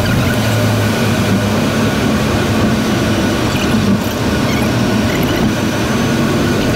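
Steady road and tyre noise of a car driving through a road tunnel, heard from inside the car, with a low hum that is stronger in the first second or so while a dump truck runs alongside.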